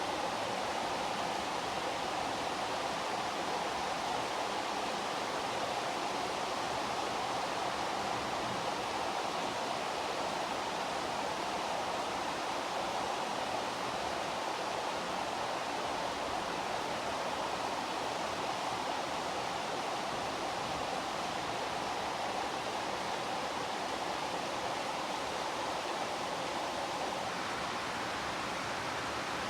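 Steady heavy rain falling, an even unbroken hiss with no thunder.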